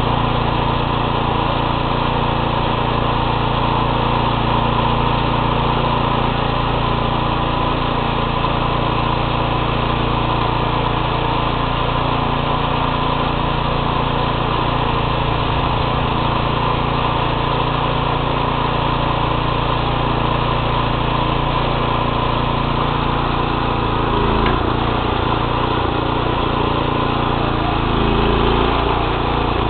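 Single-axle walking tractor's small engine running steadily as the machine drives along, heard close up from the handlebars.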